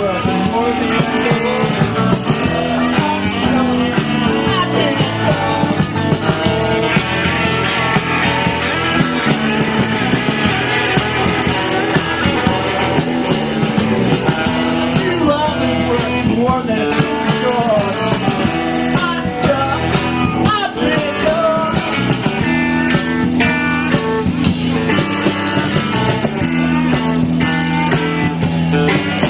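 A rock band playing live, with electric guitars, drums and sung vocals.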